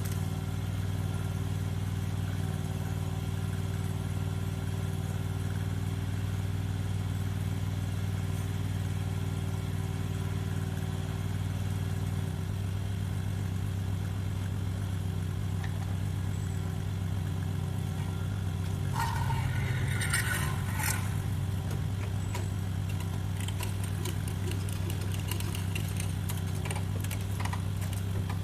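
Mini skid steer's small engine running steadily; its note changes about twelve seconds in. Metal clanking breaks in around two-thirds of the way through, with scattered clatter near the end.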